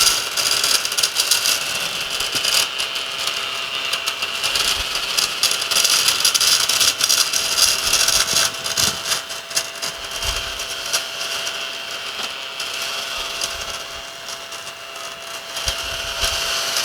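Small desktop vacuum cleaner running with a steady motor whine while it sucks up breadcrumbs, with many small clicks and rattles as the crumbs go in.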